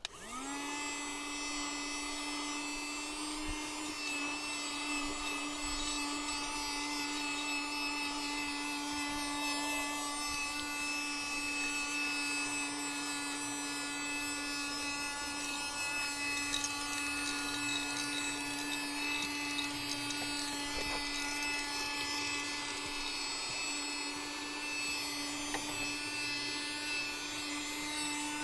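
Small USB-rechargeable handheld vacuum cleaner switched on, its motor spinning up within a moment to a steady whine and running evenly as it sucks dust from a door crevice, with a few faint clicks along the way.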